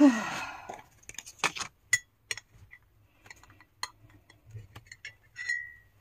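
A metal spoon clicking and clinking lightly against a ceramic mug while tea is being made. The taps are scattered, and one clink near the end rings on briefly.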